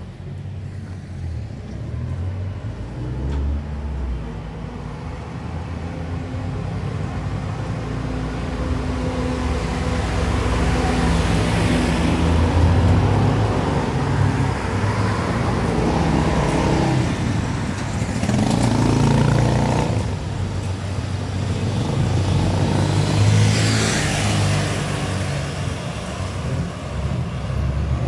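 Street traffic: motor vehicle engines running and cars passing close by, the sound growing louder and swelling several times as vehicles go past.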